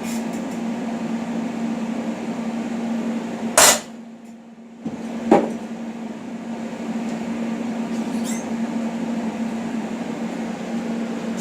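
Center punch struck once on a stainless steel buckle part, a single sharp metallic strike about three and a half seconds in, then a lighter click a couple of seconds later, over a steady background hum.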